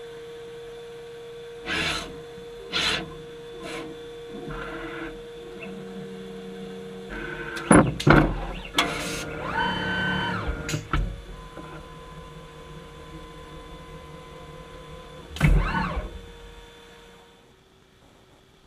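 MPM Edison solder paste stencil printer at work: a steady mechanical hum under clicks and knocks from its moving print head and stages. There is a cluster of loud knocks about eight seconds in, then a brief rising-and-falling motor whine, and one more knock later on.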